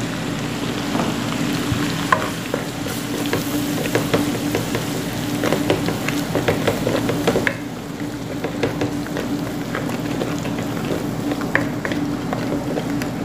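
Flour sizzling and crackling in hot frying oil in a nonstick pan as a wooden spoon stirs it, cooking into a roux for a sauce. The crackle thins out a little past the middle, over a steady low hum.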